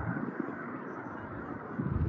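Steady, distant engine noise from a large propeller-driven military drone taxiing, with light wind on the microphone.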